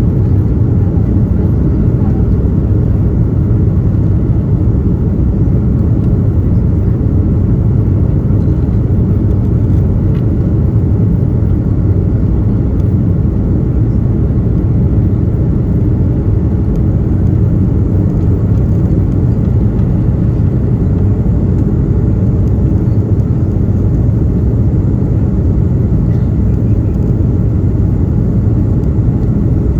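Steady, loud rumble of engine and airflow noise inside the cabin of an Airbus A330-200 airliner, mostly low in pitch and unchanging throughout.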